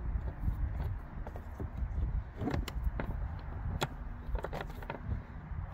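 Ratchet and socket extension backing out a 10 mm screw on a Jeep Patriot's air-filter box cover: scattered, irregular metallic clicks and taps over a low steady rumble.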